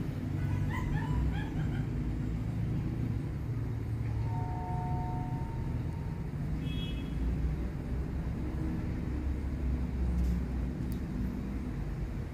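German shepherd puppy giving a few short yips and whimpers while it is held and vaccinated, with a thin drawn-out whine about four seconds in.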